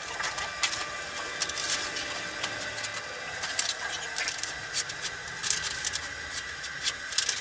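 A sheet of paper being handled, with irregular crinkling rustles and clicks, over a faint steady high whine.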